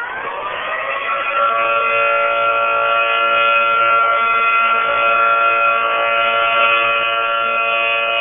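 Outdoor tornado warning siren sounding the attack signal during a weekly test. Its tone climbs over the first second or so and then holds steady, growing gradually louder.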